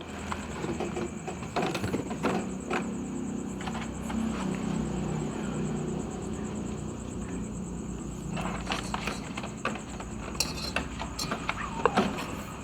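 Cats eating from bowls: irregular crunching and clicking over a steady low hum, with a low drone in the first few seconds.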